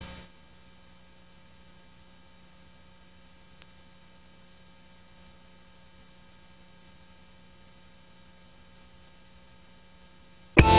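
Faint steady electrical hum with light hiss, and a single small click a few seconds in. Loud music cuts in suddenly at the very end.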